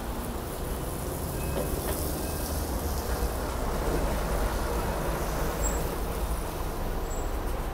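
City street traffic: a steady low rumble of a heavy vehicle passing, getting louder about two seconds in.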